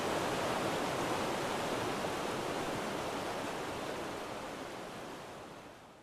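Rushing stream water, a steady even hiss that fades out over the last two seconds.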